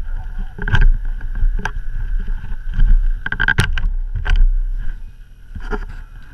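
Gloved hands bumping and rubbing against the GoPro in a string of irregular knocks and rustles, over the steady drone of snowmobile engines.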